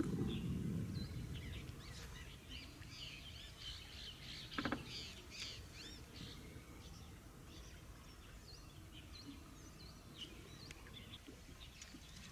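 Small birds chirping and calling in a busy chorus of short notes and quick trills, with one louder brief call about four and a half seconds in. A low rumble underneath, strongest at the start.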